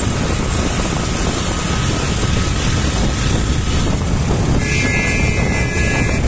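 Wind rushing over the microphone on a moving motorcycle, mixed with engine and road noise. A high steady tone sounds for about two seconds near the end.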